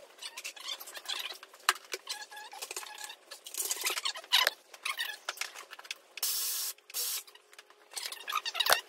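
Sped-up time-lapse workshop audio: rapid clinks and clatter of hand tools and parts as the front of an Ecotec four-cylinder engine is torn down for a timing chain job, with a short steady rush of noise about six seconds in.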